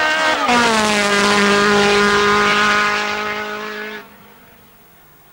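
Racing car's engine at high revs passing close by: its note drops sharply in pitch as it goes past, then holds steady while fading as the car pulls away, and cuts off suddenly about four seconds in.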